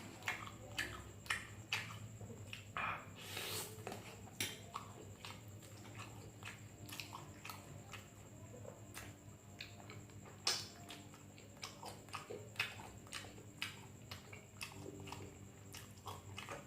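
A person chewing sausage close to the microphone: irregular mouth clicks, a couple a second, over a faint steady hum.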